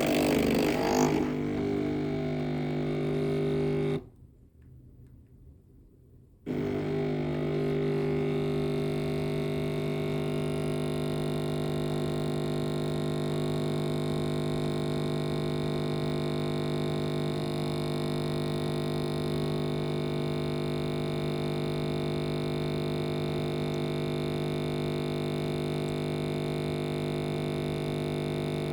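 Coffee machine running with a steady droning hum. It starts with a short rougher burst, stops for about two seconds, then starts again and runs on evenly.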